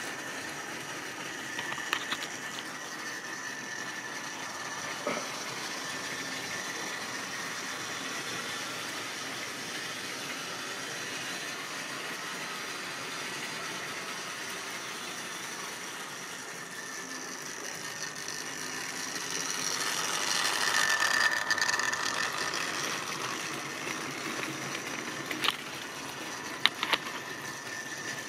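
Tri-ang model train running on the layout: the steady high whine of the locomotive's electric motor with the rattle of wheels on track. It grows louder about two-thirds of the way through as the train passes close, and a few sharp clicks come near the end.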